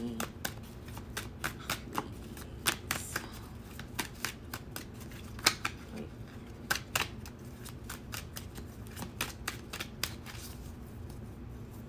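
A tarot deck being shuffled by hand, a quick, irregular run of card snaps and taps. The reader is shuffling to pull a clarifier card.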